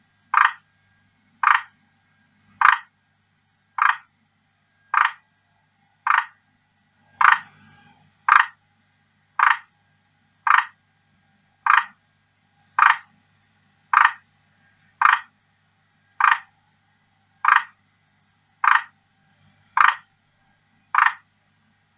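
Male forest green tree frog (Rhacophorus arboreus) giving its advertisement call to a female: a short croaking note repeated steadily about once a second.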